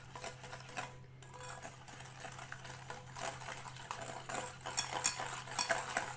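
Spoon scraping and clicking against a mixing bowl, stirring icing sugar into egg yolks, in quick irregular strokes that get busier about two seconds in.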